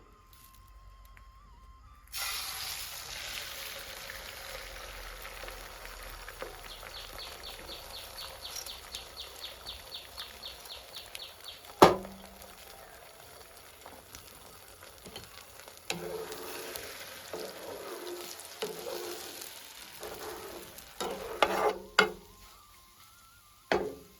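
Food hitting hot oil in a pan begins sizzling suddenly about two seconds in, the sizzle slowly easing. It is stirred with a spatula, with a quick run of light scraping strokes, a sharp knock on the pan near the middle, and more scraping and knocks toward the end.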